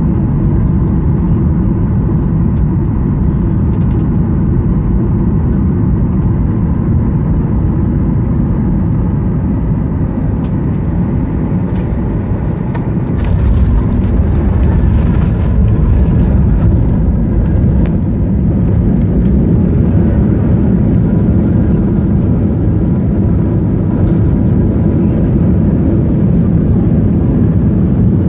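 Boeing 737 MAX cabin noise on final approach: a steady rumble of engines and airflow. About 13 seconds in, the main wheels touch down with a few sharp knocks. A louder, heavier rumble of the landing rollout follows, with the spoilers raised.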